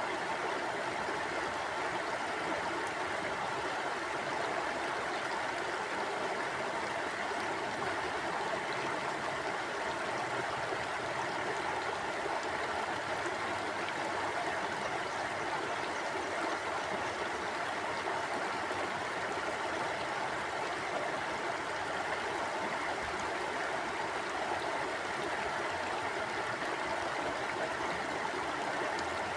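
River water flowing steadily over rocks, an even rushing with no let-up.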